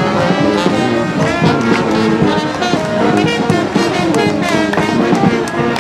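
A street brass band playing: several horns sounding a tune together over frequent drum hits.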